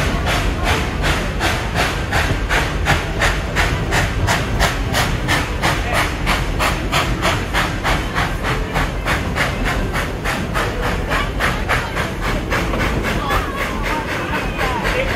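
Steam locomotive chuffing steadily at about four exhaust beats a second, over the low rumble of the train running.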